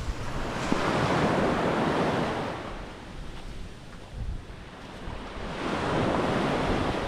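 Small sea waves washing up on a sandy beach, the surge swelling twice, with wind rumbling on the microphone.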